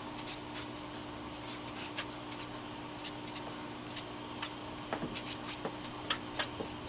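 Soft gray Tombow brush marker stroking and dabbing on cardstock: faint, scattered scratchy ticks, a few louder ones near the end, over a steady low hum.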